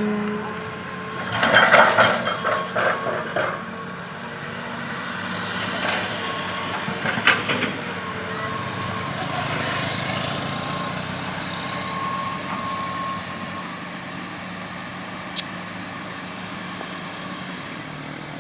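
Excavator working: its diesel engine running steadily, with bursts of metallic clanking and clatter about a second in and again around seven seconds in.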